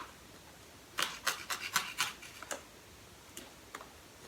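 Cardboard and plastic packaging of an iPhone XR box being handled and pried at. About a second in comes a quick run of scratchy rustles and scrapes lasting about a second and a half, followed by a couple of faint ticks near the end.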